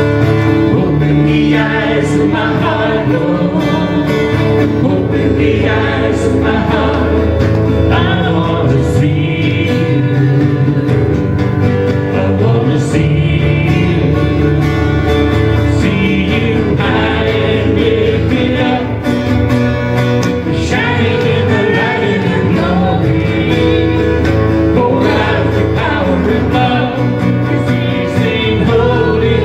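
Worship song: singing over guitar-led accompaniment in a country-gospel style, playing steadily.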